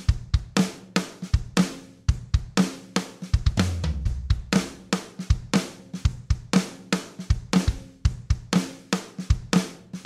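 Drum-led music with a steady beat: kick drum, snare and cymbals in an even rhythm.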